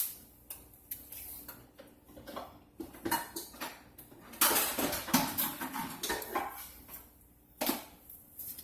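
A spoon knocking and scraping against a dish while honey is scooped out: scattered clinks, with a longer, louder run of scraping about halfway through.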